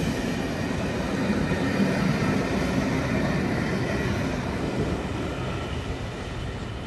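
Rake of maroon-and-cream passenger coaches rolling past on the track in a steady rumble that slowly fades as the rear of the train draws away.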